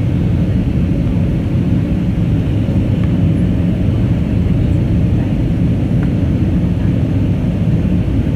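Steady cabin noise inside an Airbus A320neo in flight: engine and airflow noise, loud and even, with a faint steady hum and no changes.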